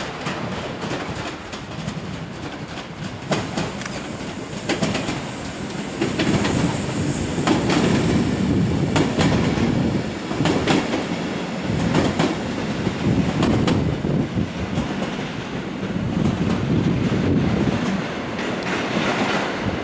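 Stadler FLIRT electric multiple unit (EN75) pulling out of the station, its wheels clicking over rail joints and points. The rumble and clicks grow louder about six seconds in as the train runs close by.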